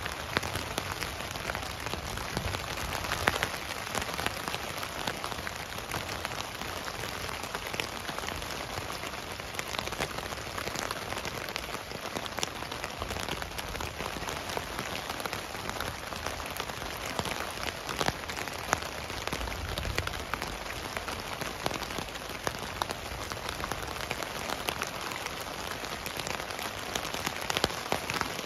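Steady rain falling on a tent, heard from inside: a dense, even patter with many sharp taps of single drops striking the fabric.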